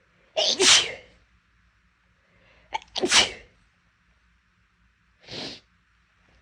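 A woman's big, loud sneezes: two in a row about two and a half seconds apart, each with a short lead-in before the blast, followed near the end by a shorter, softer burst. The sneezes are brought on on purpose to clear an irritated nose.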